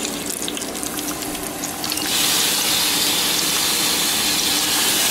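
Hot grease crackling and popping in a frying pan, with scattered sharp pops. About two seconds in, a loud, steady hiss starts suddenly and becomes the loudest sound, then cuts off about three seconds later.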